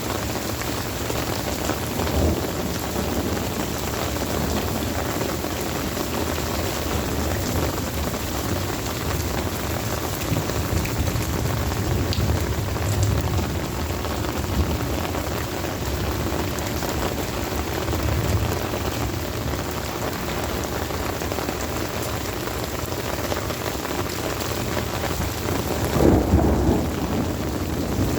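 Heavy rain falling steadily, with low thunder rumbling through it and a louder roll of thunder near the end.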